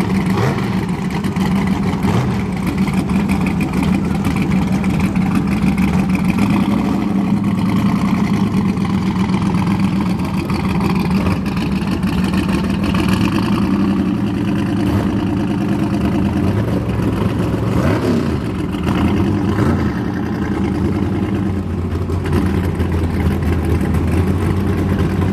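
Turbocharged square-body Chevrolet Silverado pickup's engine running at idle as the truck rolls slowly forward, a loud, steady note with no hard revving.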